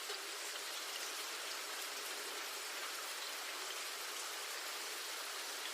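Steady rain falling: an even hiss with scattered individual drops.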